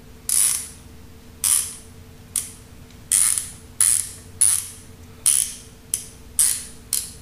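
Pittsburgh Pro 3/8-inch quick-release swivel-head ratchet being worked back and forth by hand, its pawl clicking in about ten short bursts, one per stroke, a little under a second apart.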